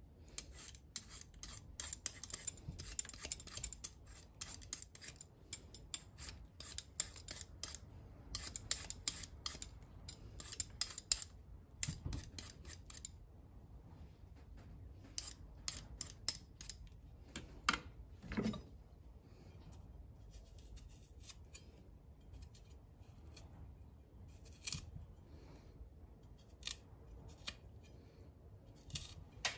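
Metal Y-shaped vegetable peeler scraping the skin off a raw potato in quick repeated strokes, dense in the first half and sparser later, with one dull knock a little past the middle.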